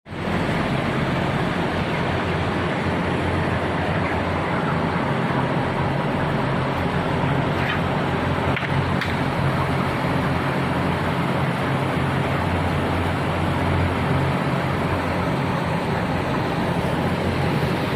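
Steady machine drone with a low hum.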